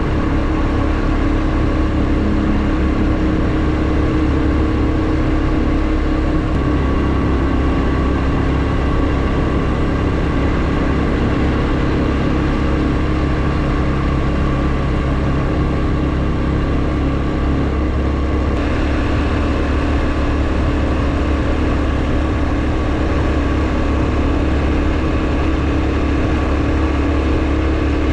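Honda Super Cub 110's single-cylinder four-stroke engine running steadily under way, with a slight change in its pitch about six seconds in.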